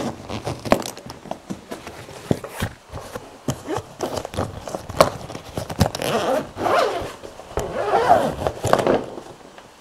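Zipper of a fabric motorcycle tail bag being pulled open in several rasps, with scrapes and clicks of the bag being handled; the longest rasps come in the second half.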